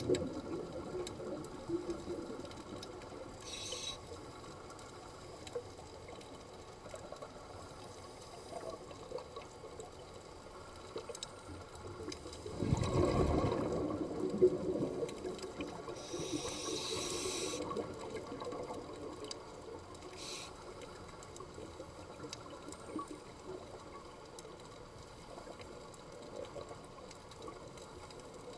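Muffled underwater sound of a scuba diver breathing through a regulator: short hisses of inhaled air a few times, and a louder gush of exhaled bubbles about halfway through, over a low steady rumble.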